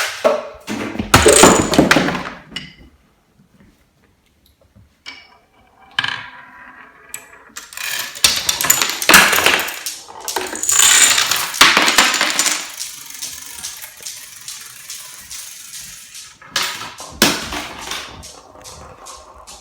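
Marbles rolling and clattering through a marble run: bursts of rapid clicking, clinking and rattling, with a few seconds of near quiet between the bursts.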